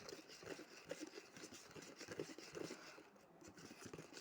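Detergent-and-water slime mixture being stirred in a bowl: faint, irregular scraping and squishing strokes that ease off briefly about three seconds in.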